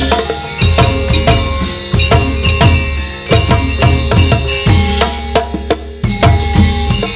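Javanese gamelan playing, with rapid kendang drum strokes leading over ringing metallophone tones. There is a short lull in the drumming near the end.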